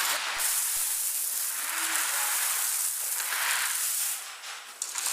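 Gritty hissing and scraping of dirt and gravel being shovelled and poured into buckets. It swells twice.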